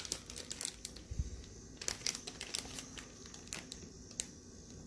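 Plastic packaging crinkling and rustling in scattered short crackles and small clicks while motherboard accessories such as SATA cables are handled.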